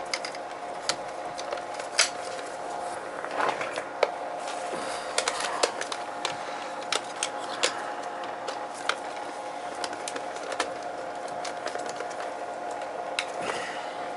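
Irregular small clicks and light taps of hand work on boiler control wiring: wires, terminals and tools being handled. A steady hum runs underneath.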